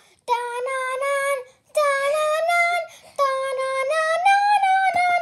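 A child singing a wordless tune in a high voice, in three short phrases of held, gently bending notes.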